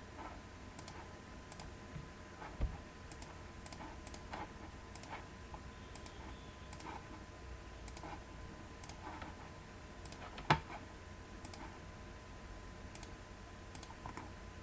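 Faint, scattered computer mouse clicks and keystrokes, with a louder click about two and a half seconds in and another about ten and a half seconds in, over a faint steady electrical hum.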